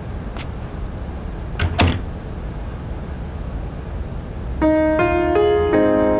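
Low steady background rumble with a few faint clicks, a dull double knock a little under two seconds in, then piano music begins about three quarters of the way through, a few notes at a time.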